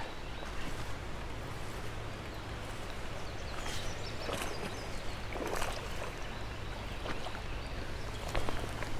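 Creek water running steadily, with a few brief splashes from a hooked smallmouth bass being played in on the line.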